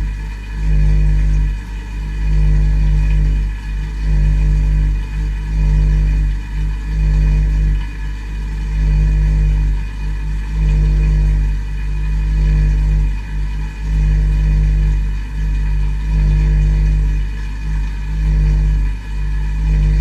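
Dishwasher's wash pump running with a steady low hum, heard from inside the tub, its level dipping briefly every one to two seconds.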